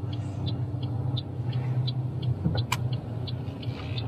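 Car engine humming inside the cabin, with the turn-signal indicator ticking evenly, about three ticks a second. One sharper click about two-thirds of the way through.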